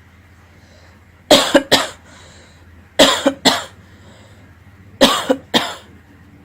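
A person coughing in three fits about two seconds apart, each fit two or three sharp coughs in quick succession.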